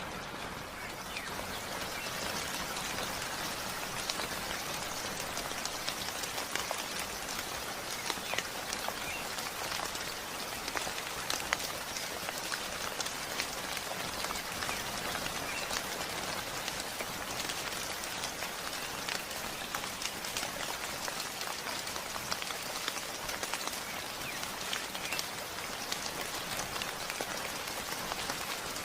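Heavy rain falling steadily, a continuous hiss with many distinct drops pattering on a surface.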